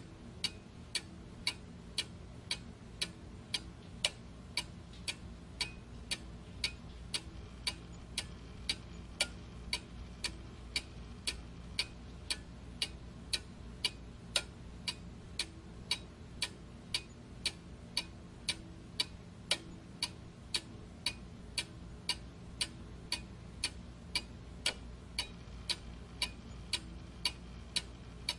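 Steady, even ticking, about two ticks a second, over a low steady hum.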